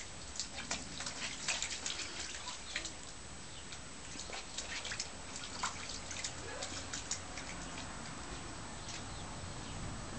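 Shallow water in an inflatable paddling pool splashing and dripping as a Shih Tzu puppy paws and steps in it: quick small splashes in two flurries, thinning out near the end.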